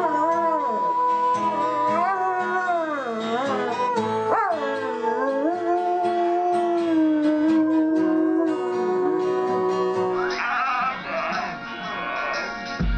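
A dog howling in long, wavering, drawn-out notes with music; about ten seconds in the howl stops and a different sound takes over.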